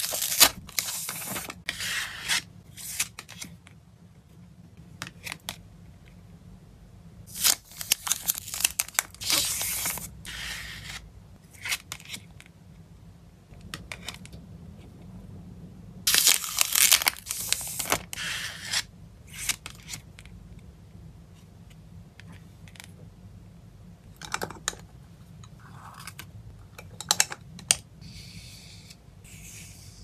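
Thin plastic card packaging crinkling and tearing as a sealed trading-card pack is pulled from its cellophane sleeve and peeled open by hand. The rustling comes in bursts: near the start, about eight seconds in and about sixteen seconds in, with a few lighter rustles later.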